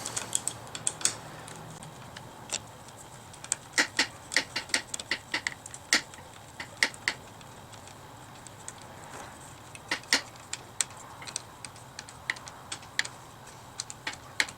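Hand ratchet with an Allen bit clicking in short, uneven runs of quick ticks as it turns the motorcycle mirror's mounting bolt, tightening it down.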